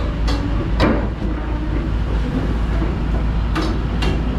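Hyundai R300LC crawler excavator's diesel engine running with a steady deep rumble as the machine works its way onto a lowboy trailer, with a few sharp knocks during the movement.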